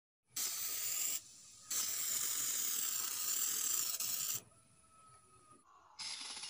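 Aerosol spray paint can, fitted with a brass valve nozzle, spraying in hissing bursts. There is a short burst of about a second, a brief pause, a longer burst of nearly three seconds, then another burst starting about six seconds in.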